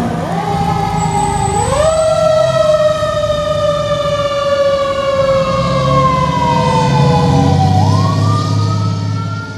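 Fire engine's sirens wailing as it responds: two tones climb steeply early on, sink slowly for several seconds, and climb sharply again near the end, over the truck's engine running underneath.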